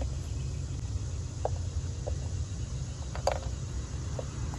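Pry tool working at the plastic PCV cover on a BMW B58 engine's valve cover: a few small faint clicks and one sharper snap about three seconds in, over a steady low background rumble.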